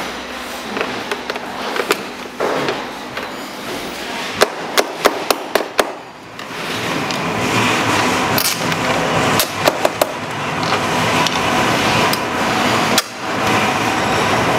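Hard plastic and metal parts of a ride-on toy buggy's rear gearbox and wheel housing being handled, giving sharp clicks and knocks, with a quick run of about six a little over four seconds in. From about halfway a steady rushing noise runs under further scattered clicks.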